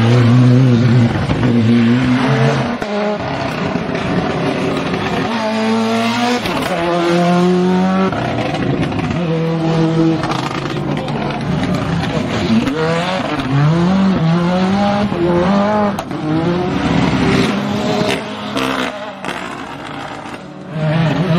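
Ford Escort RS Cosworth WRC rally cars' turbocharged four-cylinder engines revving hard through corners, the pitch climbing and dropping through several gear changes. The sound cuts abruptly from one car to the next.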